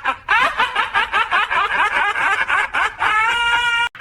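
Hearty rapid laughter, several quick "ha" pulses a second, ending in one long high held squeal that cuts off suddenly near the end.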